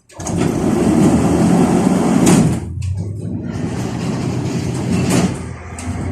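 Loud mechanical noise inside a 71-605A (KTM-5A) tram, starting abruptly, with two sharper knocks, one about two seconds in and one near five seconds.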